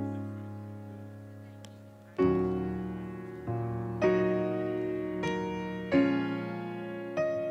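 Background piano music: slow chords, each struck and left to ring and fade, a new one every second or so.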